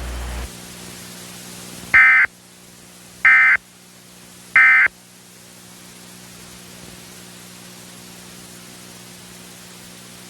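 Emergency Alert System end-of-message (EOM) code: three short bursts of SAME digital data tones, each about a third of a second long and about a second and a quarter apart. They mark the end of the alert. A steady low hum and hiss run underneath.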